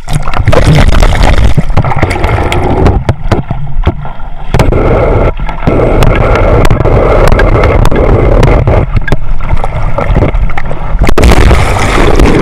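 Loud water rushing and splashing right over the microphone, with a constant deep rumble and frequent sharp knocks.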